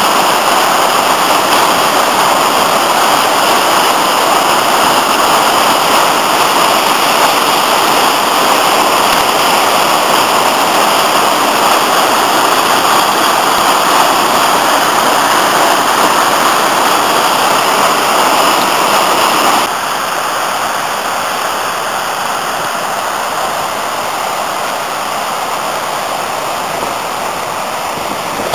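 The Afon Artro in spate after heavy rain, white water rushing loudly and steadily over rocky falls. The rush drops suddenly to a slightly lower level about two-thirds of the way through.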